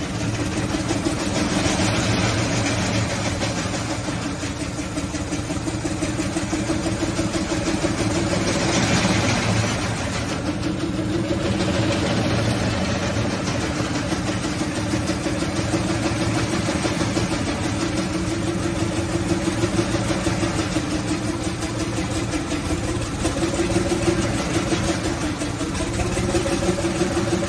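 Kahlenberg 90 hp three-cylinder two-stroke semi-diesel marine engine running steadily, with a fast, even exhaust beat.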